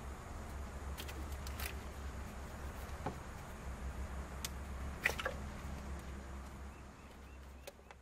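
Scattered small clicks and knocks from hands working an engine distributor and its wiring connector loose and pulling the distributor out, over a low steady rumble that fades near the end. The loudest click comes about five seconds in.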